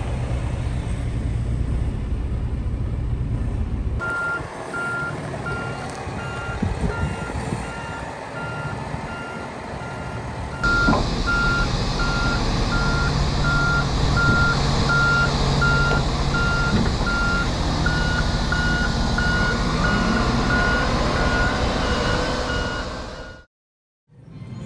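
Heavy forklift's reversing alarm beeping steadily, a little faster than once a second, over its diesel engine running; the sound cuts off near the end. In the first few seconds only a truck engine idling is heard.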